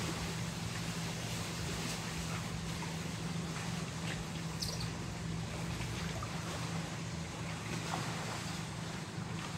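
A steady low motor hum under an even haze of outdoor noise, with a few faint ticks.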